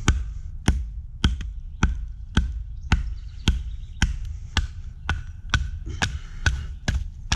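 A baton striking the spine of a knife, driving the blade through a knotty piece of firewood: sharp, evenly paced knocks about two a second.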